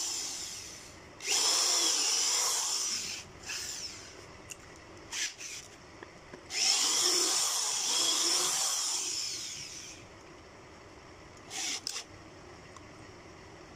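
Corded electric drill boring holes through a board panel: the motor whines up under the trigger, runs while the bit cuts, then winds down. There are two long runs of a few seconds each and several short trigger blips in between.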